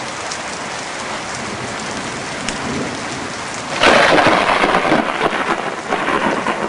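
Rain with thunder: steady rain, then a loud crack of thunder about four seconds in that fades over the next few seconds.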